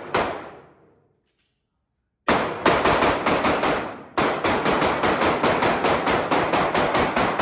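Gunfire: a single shot, a pause of about two seconds, then rapid strings of shots at about four a second. A short break comes about four seconds in, and the shots echo after each report.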